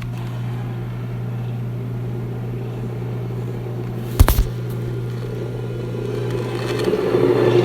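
Monster-film sound effect: a steady low drone, a single sharp bang about four seconds in, then a louder rumbling sound swelling up near the end.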